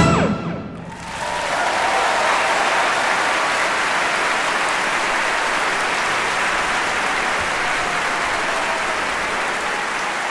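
Music fades out about a second in, then steady, dense applause from many hands.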